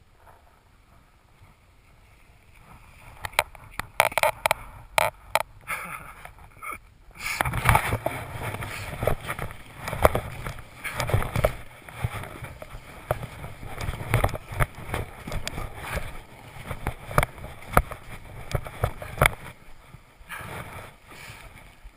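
Snowboard sliding down a packed-snow piste: a rough scraping rumble of the board on the snow that sets in about seven seconds in, full of sharp knocks and clicks, after a few seconds of scattered clicks and taps; it eases off near the end.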